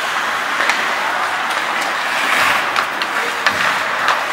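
Ice hockey play: skate blades scraping and carving on the ice, with scattered sharp clacks of sticks hitting the puck and the ice.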